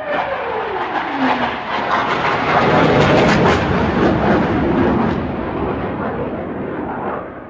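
A fast vehicle passing by: its engine tone drops steeply in pitch over the first second and a half, then a loud rush swells to a peak about three seconds in and dies away near the end.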